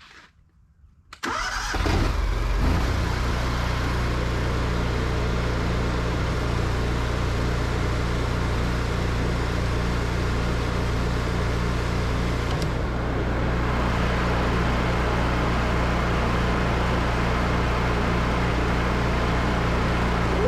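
Pressure washer running: a steady engine hum under the loud hiss of the spray, starting abruptly about a second in.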